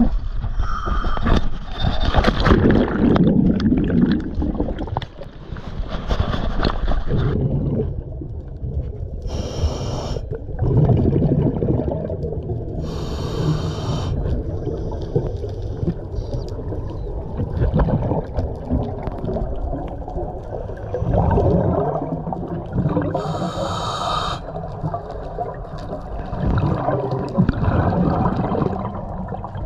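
Underwater sound of a scuba diver breathing through a regulator: three short hissing inhalations about ten seconds apart, with the rumbling gurgle of exhaled bubbles between them. The first seven seconds or so are louder and more jumbled.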